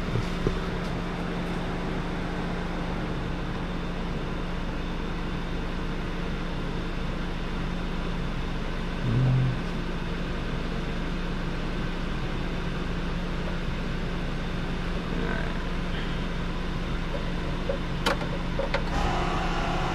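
Two electric fuel pumps running together with a steady hum as the fuel system is primed and brought up to pressure. A short low thump comes about nine seconds in, and a few sharp clicks near the end.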